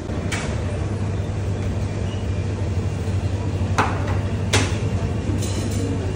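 Shop background noise: a steady low hum with three sharp knocks, one shortly after the start and two close together about four seconds in.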